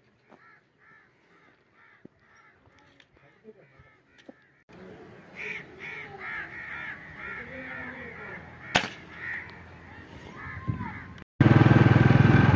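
Birds calling in quick runs of short repeated notes, about three a second, with a single sharp click about nine seconds in. Near the end a loud steady rumble cuts in suddenly.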